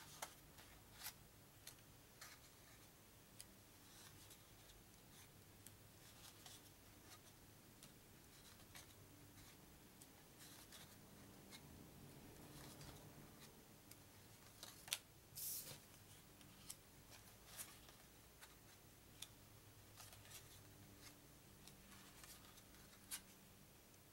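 Faint, scattered clicks and soft slides of paper trivia cards being lifted one by one off a deck on a wooden table, with a louder click and a short swish about fifteen seconds in.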